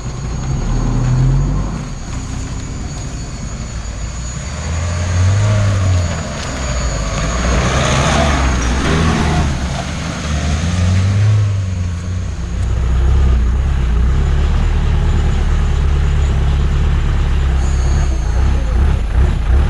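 Off-road 4x4 engine running at low speed and revving up and down in a few swells, with a louder rushing noise about eight seconds in.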